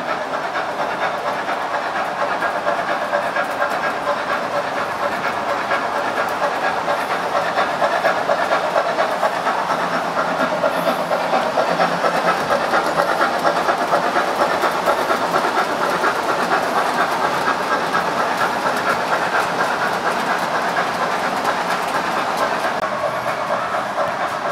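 Gauge 1 model of a class 52.80 steam locomotive running past on the layout with a steam-engine running sound and rapid clicking of wheels on the track, growing louder in the middle as it passes close and easing off near the end.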